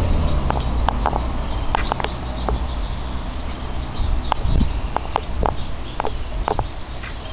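Short, irregular chirps and call notes from young red siskin mules (red siskin × red factor canary hybrid cocks), over a steady low background rumble.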